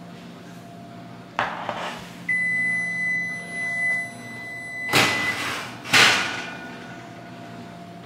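A kitchen range's electronic control sounds one long, steady, high beep lasting about three seconds. A short clatter comes before it, and two loud knocks follow about a second apart, the second one the loudest.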